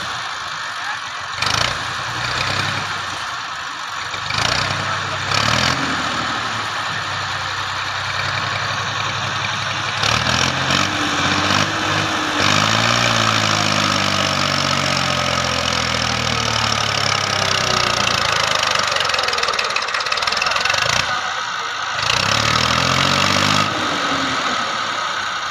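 Massey Ferguson 240 tractor's three-cylinder diesel engine working hard under load, its pitch rising and falling as it is revved up several times, most strongly about halfway through and again near the end, as the tractor strains to pull a stuck, sand-laden trolley out of soft sand.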